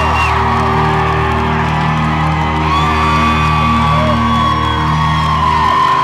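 Live rock band with electric guitar and bass holding long ringing chords, and the audience whooping and screaming over it. The deep bass notes stop near the end.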